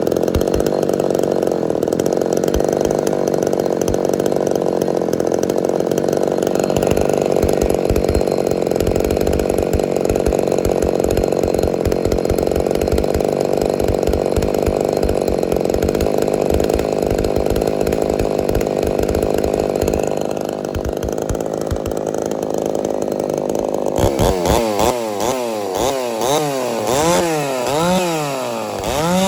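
Ported Homelite Super XL-130 two-stroke chainsaw running at steady high speed for about twenty seconds, then dropping back and being revved up and down five or six times near the end.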